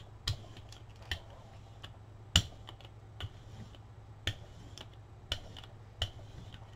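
Light, sharp dinging clicks, about one a second at uneven spacing, the loudest about two and a half seconds in, over a low steady hum.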